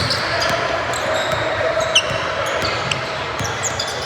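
Basketball game sound in a gym: sneakers squeaking on the hardwood, the ball thumping on the floor, and a steady crowd murmur, with one sharp knock about two seconds in.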